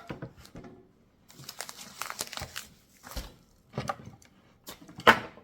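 Plastic packaging crinkling and rustling in irregular bursts as it is handled, with a louder sharp crackle about five seconds in.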